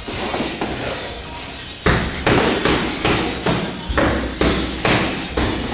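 Dull thuds and knocks in a boxing gym: a few at first, then a steady run of about two a second from about two seconds in.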